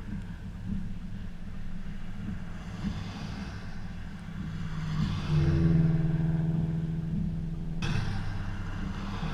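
Vehicle running with a steady low road rumble. A little past halfway a steady, low, horn-like tone joins for about two and a half seconds, then cuts off abruptly.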